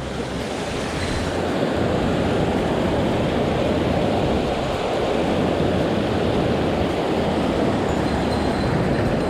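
Fast mountain stream rushing steadily close to the microphone, running high after rain.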